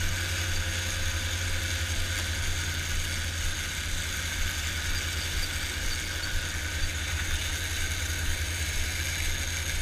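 Sport-fishing boat's engines running steadily under way: a constant low drone with the rush of wake and wind over it.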